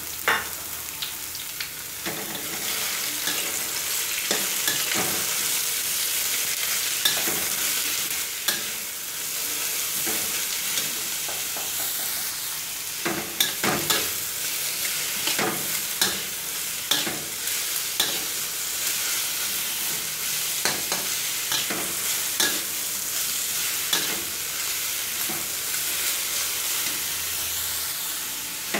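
Sliced bitter melon sizzling in hot oil in a steel wok, with a metal spatula scraping and knocking against the wok at irregular moments as it is stir-fried.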